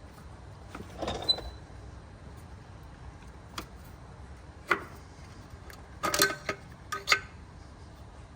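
Scattered clicks and metal clanks from tools and parts being handled, with a short cluster about six seconds in that rings briefly like struck metal.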